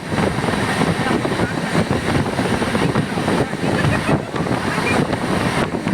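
A moving train's running noise heard from on board: wheels on the rails and rushing air, steady throughout.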